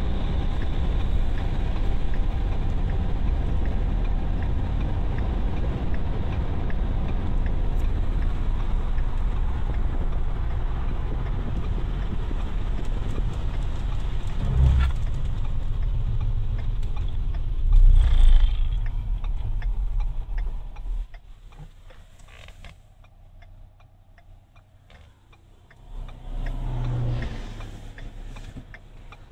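Car cabin noise while driving: a steady low rumble of engine and road, with a couple of heavier low thumps around the middle, then the noise falls away sharply about two-thirds of the way through as the car comes to a stop.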